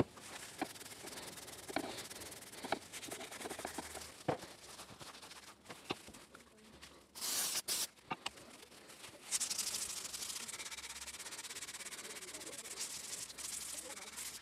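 Rusty steel collet draw tube being handled and scrubbed to de-rust it, with scattered light metal clicks. A short hiss of aerosol penetrating oil comes about halfway through, then fast, rhythmic rubbing for the rest.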